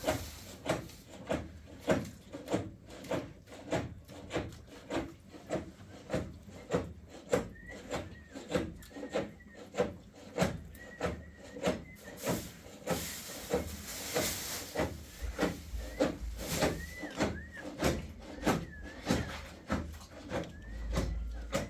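Steady rhythmic scraping strokes, about one and a half a second, like a hand working something back and forth against a rough surface.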